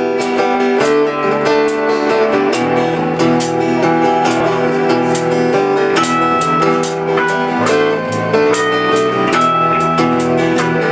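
Live band playing an instrumental intro: strummed acoustic guitar with electric bass, in a steady rhythm of about two to three strums a second, the chords changing every second or so.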